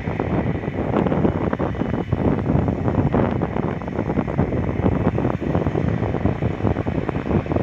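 Wind buffeting the microphone: a steady, gusty rushing noise.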